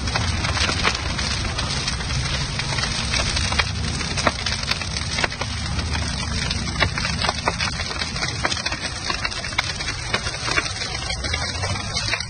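Large fire of burning tyres crackling, with many sharp pops a second over a steady low rumble.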